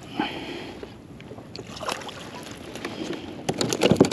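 Water splashing as a fish is swung out of the sea against a plastic kayak. Near the end comes a quick run of knocks and rattles on the kayak deck as the fish is handled there.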